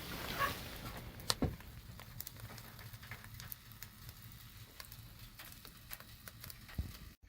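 Quiet crackling and sizzling from the cabin's woodstove, with scattered small sharp clicks; the loudest click comes a little over a second in.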